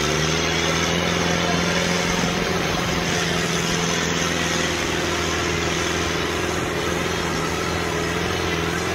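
Mahindra Arjun 605 tractor's four-cylinder diesel engine running steadily under heavy load while dragging a disc harrow through soil.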